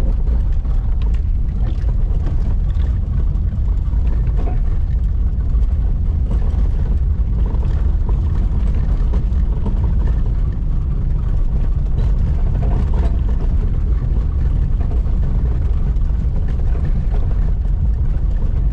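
Car driving: a steady low rumble of engine and road noise, with faint rattles, unchanging throughout.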